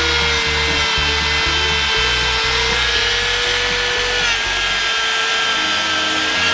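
Handheld rotary tool running a rubber abrasive polishing wheel against a small metal part, a steady high whine with a rubbing grind that drops slightly in pitch about four seconds in. Background music with a steady bass beat underneath.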